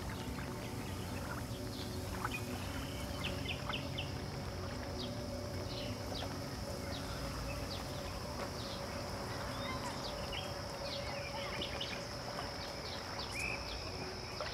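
Outdoor ambience: a steady high insect drone with many short chirps and clicks scattered through it, over a low steady hum.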